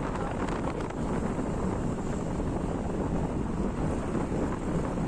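Steady wind buffeting the microphone over the low rumble of a vehicle moving along a road.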